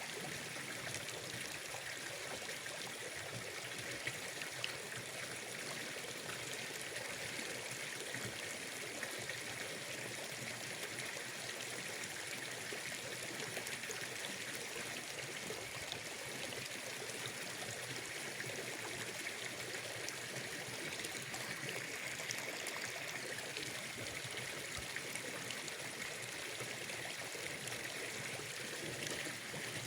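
Water running steadily, an even rushing hiss with a few faint small ticks.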